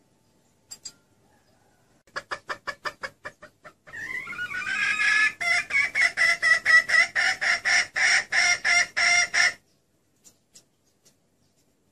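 Female junglefowl clucking: a quick run of short clucks, then after a brief pause a louder, faster run lasting about five seconds. It is a hen's call, used as a lure to draw in junglefowl cocks.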